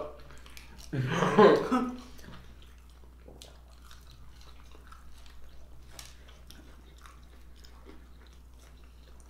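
People chewing food, a sparse run of soft mouth clicks. A short burst of voice about a second in.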